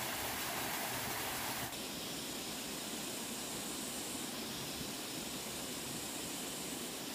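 Steady, even rushing noise with no distinct events, turning slightly softer and duller a little under two seconds in.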